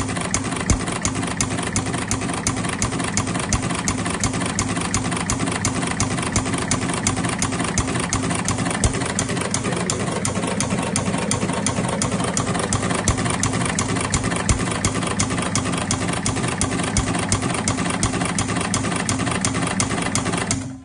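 Engine idling steadily after being adjusted, with an even, regular beat of firing pulses; it stops abruptly at the very end.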